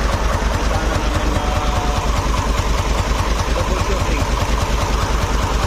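Engine idling with a fast, steady ticking from the valvetrain, a sign of excessive valve clearance that the mechanic says needs a tune-up to cure.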